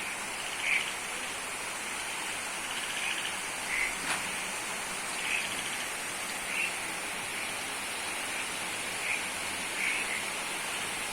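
Steady hiss of heavy rain approaching, heard from a distance before it reaches the spot. Short high chirps recur every second or so.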